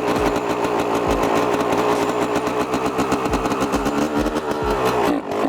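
Freshly rebuilt Yamaha YZ125 single-cylinder two-stroke dirt bike engine running, its rapid firing rising and falling in pitch as the throttle is worked. The revs dip briefly near the end.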